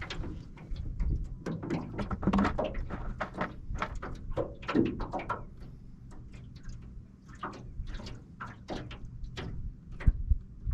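Irregular light clicks and knocks of fishing tackle being handled in a boat, over a low background rumble.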